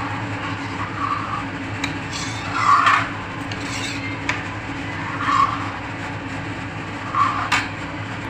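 Steel ladle stirring thick spinach puree in a metal kadhai, scraping against the pan with a few short squeaks and three sharp taps, over a steady low hum.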